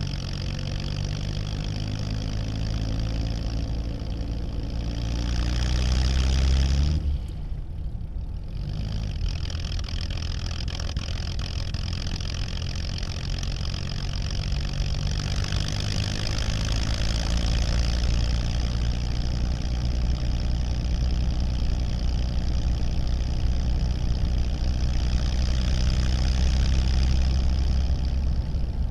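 1937 Plymouth's flathead straight-six heard from inside the cabin, pulling away. The engine note rises for about seven seconds, drops away suddenly at a gear change, then climbs again and runs steadily under load in the next gear.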